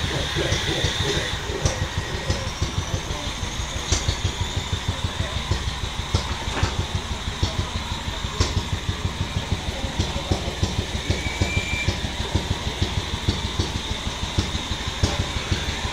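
An engine running with a fast, even beat of low thumps, with a few sharp clicks over it.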